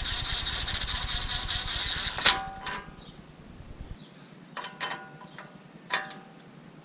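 Metal tools and parts at a wheel hub being fitted: a dense, rapid rattle for about two seconds, then one sharp metallic clang that rings briefly. A few lighter metal clinks follow.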